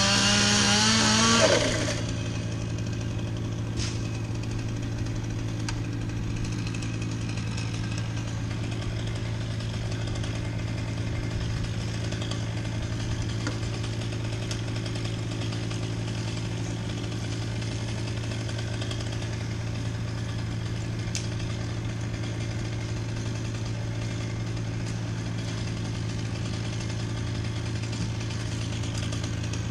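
Stihl chainsaw revving hard for about two seconds at the start, its pitch rising and falling, then stopping. After that a small engine runs steadily at idle in the background.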